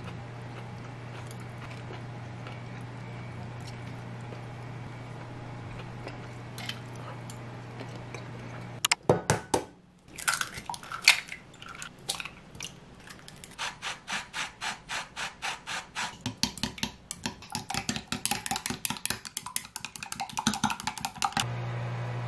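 Eggs cracked on the rim of a glass Pyrex measuring jug and dropped in, with a few sharp knocks. Then the eggs are beaten in the jug in a quick, even rhythm of about two to three strokes a second, tapping against the glass. A low steady hum runs under the first part and returns at the end.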